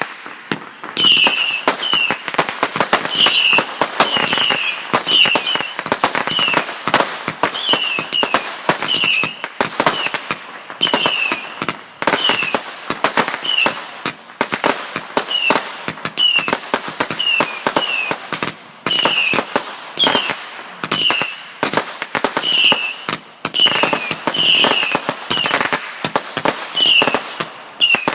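Fireworks finale: a dense, continuous barrage of bangs and crackling from many shells going off in quick succession. A short, high, falling tone recurs about every half second throughout.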